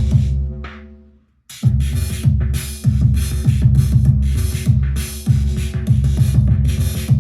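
Arturia DrumBrute Impact drum machine playing a heavy electronic beat with a deep kick. About a second in the pattern fades out and stops for a moment. It restarts with loud hissy noise hits on each beat over the kick.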